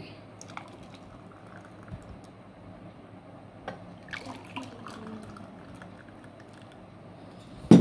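Thick milkshake poured from a plastic jug into glass tumblers, a soft liquid pour with a few small clicks. A sharp knock near the end is the loudest sound.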